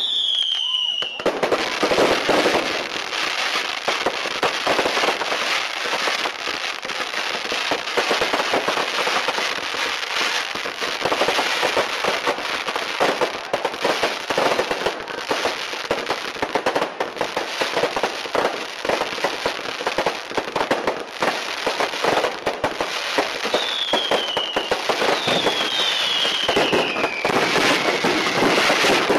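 Fireworks display: a dense, continuous crackle of many small bangs from bursting aerial fireworks, with a few whistles falling in pitch at the very start and again near the end.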